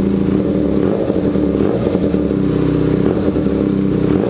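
Benelli 300's parallel-twin engine running at idle, apparently without its muffler fitted. The steady note turns uneven for a few seconds in the middle, then settles again.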